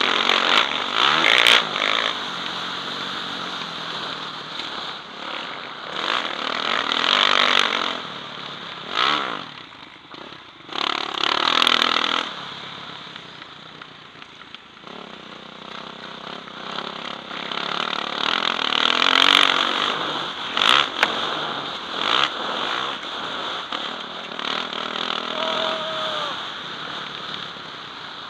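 Motocross bike engine racing round a dirt track, revving up hard in surges and easing off between them as the throttle is opened and closed, heard close up from the rider's helmet.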